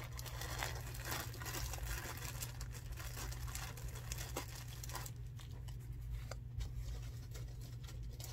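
Thin plastic bag crinkling and rustling as hands open it and handle the yarn skein inside; the crinkling dies down about five seconds in.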